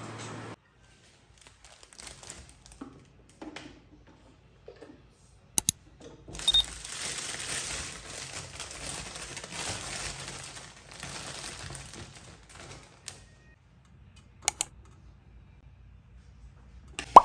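Kitchen handling sounds: a plastic bag of bagels rustling for several seconds as a bagel is taken out, with scattered sharp clicks and knocks, including a pair before the rustling and a single one near the end.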